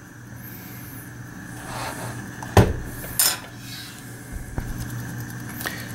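Handling noise from a Mosler time lock on its wooden mounting block: a few metallic clinks and knocks, the two loudest about two and a half and three seconds in.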